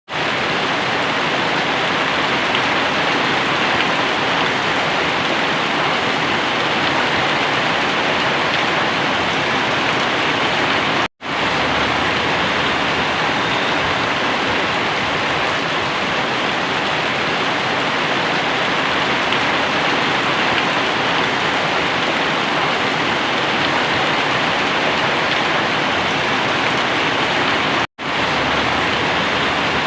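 Very heavy rain pouring down as a dense, steady hiss. It cuts out for an instant twice, once about a third of the way in and once near the end.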